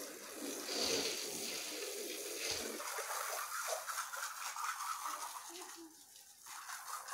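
Water spraying from a garden hose, a steady hiss that dips briefly about six seconds in.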